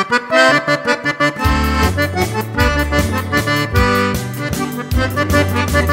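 Piano accordion playing an instrumental intro: a melody in quick notes, with bass notes coming in on a steady rhythm about a second and a half in.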